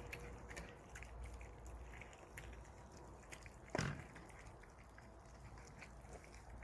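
Cats eating, with many small scattered chewing clicks and one brief louder sound about four seconds in.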